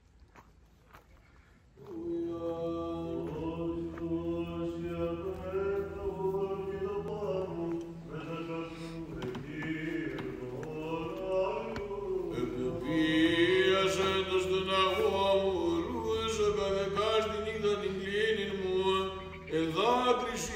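Orthodox church chant: voices singing a slow, drawn-out melody over a steady held drone note. It starts about two seconds in, after a few faint clicks.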